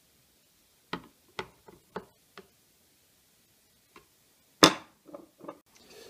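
Screwdriver working the screws out of the plastic base of a DeLonghi filter coffee machine: five short irregular clicks about a second in, a lone tick near four seconds, then one sharp, louder click followed by a few lighter knocks.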